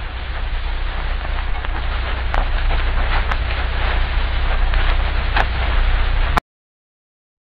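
Rain sound effect: a steady hiss of rain with scattered sharp ticks and a low rumble underneath, slowly growing louder, then cutting off abruptly about six seconds in.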